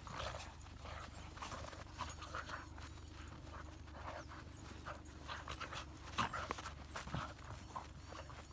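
A Hokkaido dog and a second dog play-wrestling in snow: quick panting breaths and scuffling paws in short, irregular bursts.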